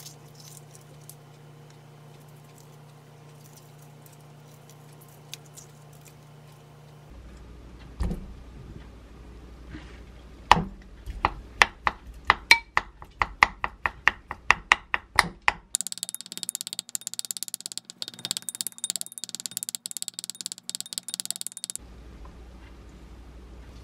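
Peeling the shell off a freshly boiled egg gives a few faint small clicks. Then a wooden spoon chops peeled boiled eggs against a glass bowl: sharp taps at about three to four a second, the loudest sounds here. These give way to a faster, finer clicking and scraping in the bowl.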